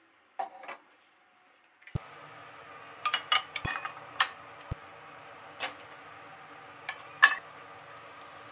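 Kitchenware clatter. A glass pot lid is set down on a stainless saucepan with a short clink. Then, over a steady background hum, a bowl and wooden chopsticks knock against a frying pan several times as shredded potato is tipped in, with the sharpest clack near the end.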